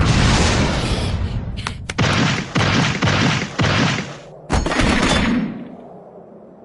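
Anime battle sound effects: a long blast, then a run of sharp impacts about half a second apart, dying away near the end.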